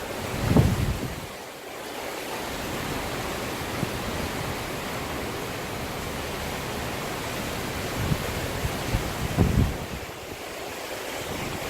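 Hurricane-force wind rushing steadily, with gusts buffeting the microphone in low thumps about half a second in and again around eight to nine and a half seconds.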